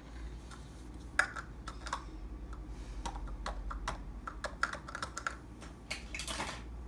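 Light, irregular clicks and taps of grocery packaging being handled and set on refrigerator shelves, with a short rustle about six seconds in.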